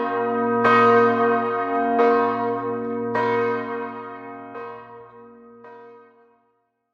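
A single large memorial bell tolling, struck five times about a second and a quarter apart, each stroke ringing on over a low hum. The last two strokes are fainter, and the ringing dies away near the end.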